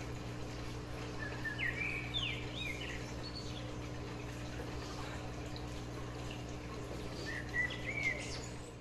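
Birds chirping in two spells, a second or two in and again near the end, over a steady low hum.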